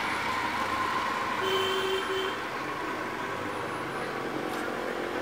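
Steady outdoor background noise, with a brief double tone, two short beeps, about a second and a half in.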